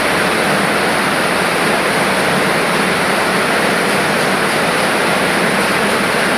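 Powder sachet packing machine running, a loud steady noise without pauses.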